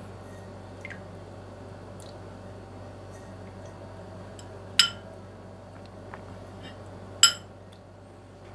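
A metal spoon clinks sharply against a bowl twice as soup is ladled out, with a few faint taps between, over a steady low hum.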